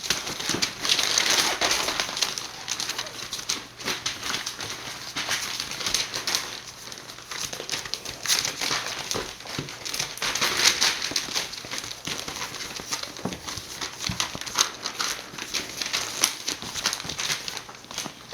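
Border Collie puppies moving about and scuffling, with irregular rustling and crinkling and many small clicks coming and going in bouts.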